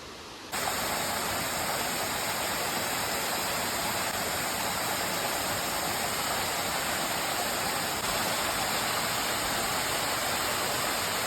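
Waterfall: a steady rush of falling water that starts abruptly about half a second in and keeps on evenly.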